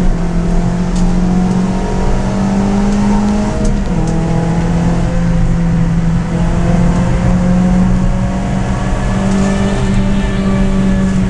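Suzuki Swift track car's engine heard from inside the cabin under hard driving. The revs climb slowly, then drop sharply about four seconds in at an upshift and climb again, over steady tyre and road noise.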